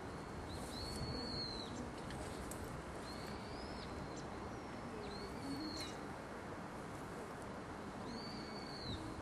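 A bird's high, thin whistled call, given four times, each about a second long and dropping briefly at its end, over a steady background hiss.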